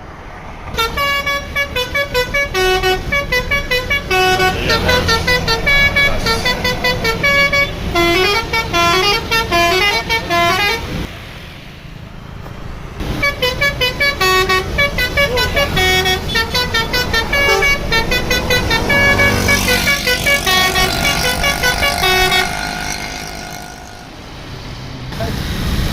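A bus's basuri telolet multi-tone horn playing a fast tune of short stepped notes in two long runs with a short break between them, then a few held notes and a fresh run near the end. A low engine rumble runs underneath.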